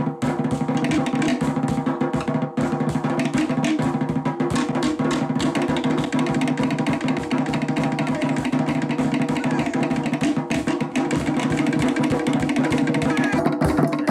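Fast, continuous Tahitian dance drumming: a drum ensemble beating rapid, driving strokes without a break.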